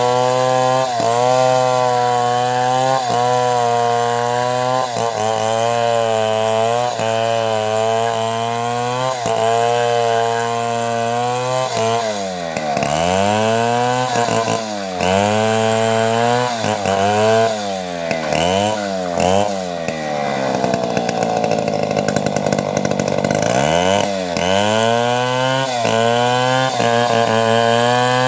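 Two-stroke chainsaw ripping a log into boards, held at high revs under steady load at first. About halfway through, the revs start dropping and picking up again and again, sinking to a low idle for a few seconds before it revs back up.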